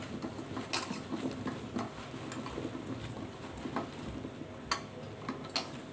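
Hands tossing chopped raw mango pieces in a stainless steel bowl to coat them with salt and turmeric: the firm pieces shuffle and knock against one another and the steel, with a few sharp clinks.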